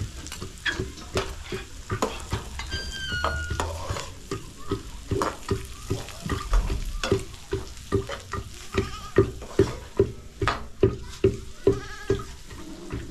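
Metal spoon scraping and stirring food sizzling in a frying pan over a wood fire. Regular knocks, about two a second, grow louder in the second half.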